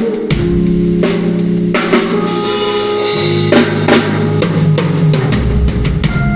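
A band playing: drum kit hits over a bass line and held chords, the bass note changing a few times.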